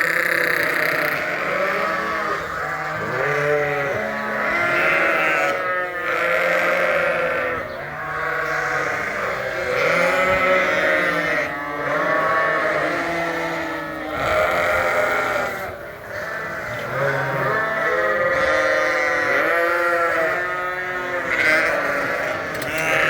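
A barnful of sheep bleating loudly and without pause, many voices calling over one another: the hungry clamour for food at feeding time.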